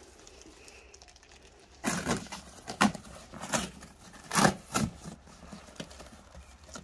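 Corrugated cardboard box being torn open by hand, about five short rips starting around two seconds in.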